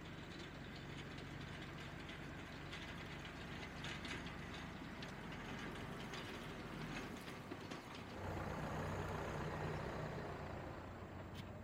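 Ursus C-392 tractor's engine running steadily as it pulls a Strumyk 2.4 disc harrow over stubble, with clattering from the working harrow. The sound grows louder about eight seconds in as the tractor passes close.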